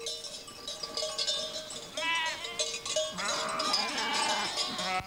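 Sheep bleating, with the clanking and ringing of bells worn by the flock. The bells ring throughout, and bleats come in from about two seconds in.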